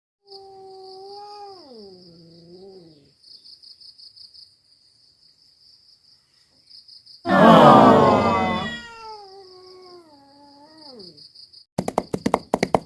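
A cat meowing: two long, drawn-out meows that fall in pitch, with a loud, harsh yowl between them. Insects chirr steadily at a high pitch throughout, and a quick run of sharp clicks starts near the end.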